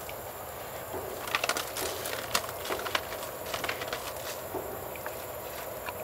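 Northern tamandua breaking into a termite nest, with irregular crackles and crunches of the nest material, thickest in the first half and thinning out after about four seconds, over a steady hiss.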